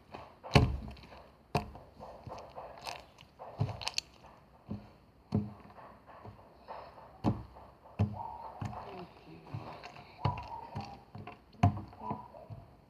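Slime being pressed and worked by hand, giving irregular sharp pops and clicks as trapped air bubbles burst.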